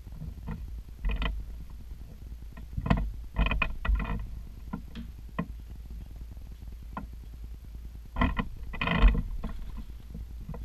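A few irregular knocks and scuffs from someone moving about and handling things close to the microphone, the loudest about three seconds and nine seconds in, over a steady low rumble.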